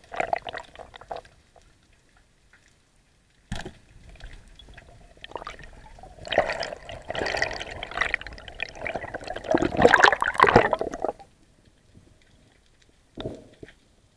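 Water rushing and bubbling against an underwater camera's housing as a spearfisher swims up near the surface. A sharp knock comes about three and a half seconds in; the water noise grows loud from about six seconds in and stops suddenly near eleven seconds, with one short splash of sound near the end.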